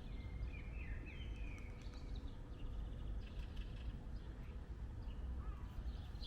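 Small songbirds chirping and twittering in short phrases, busiest in the first couple of seconds, over a steady low rumble.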